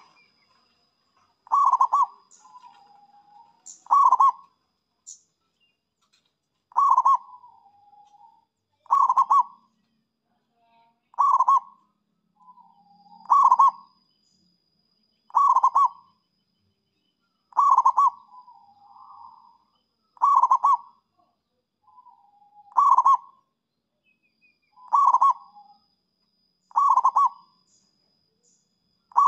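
Zebra dove (perkutut) cooing: a short call of quick coo notes about every two seconds, some followed by a softer, lower trailing coo.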